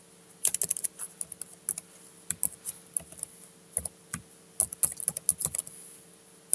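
Computer keyboard typing: irregular runs of quick keystroke clicks with short pauses between them, over a faint steady hum.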